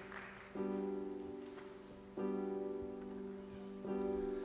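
Solo piano introduction: a held chord fading, then three chords struck about a second and a half apart, each left to ring and die away.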